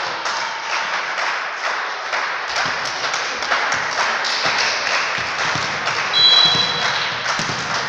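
Referee's whistle blown once for just under a second, about six seconds in, at the moment the team lines up to serve. Behind it is the echoing clatter of a sports hall full of taps, claps and knocks.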